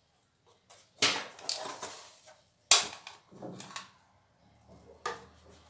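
Kitchen knife cutting through a tray of stacked galash (phyllo) pastry sheets in an aluminium baking tray. There are three sharp strokes, about one, three and five seconds in, each followed by a short rustle of the blade drawing through the layers.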